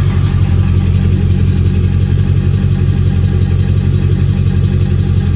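Ford 7.3 Powerstroke V8 turbo-diesel idling steadily with a regular knocking, a knock whose cause the owner does not know.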